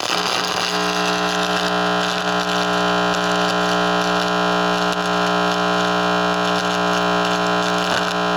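Microwave receiver putting out a loud, steady electronic buzz mixed with hiss, which starts abruptly. The owner takes the sound for radio-frequency transmissions aimed at his room.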